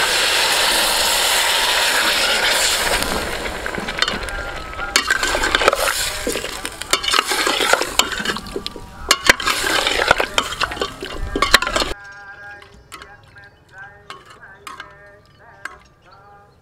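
Coconut milk poured into a hot stainless steel pot of curry-coated chicken feet, with a loud, steady sizzling hiss. Then a metal ladle stirs the feet, clinking and scraping against the pot. About twelve seconds in the sound drops abruptly to much quieter stirring clicks.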